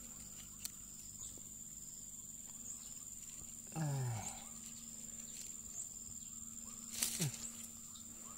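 Insects trilling steadily in a high, thin tone, with a short voice-like hum about four seconds in and a sharp click near seven seconds.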